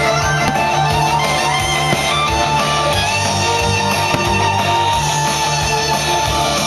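Music led by guitar, playing steadily and loudly throughout.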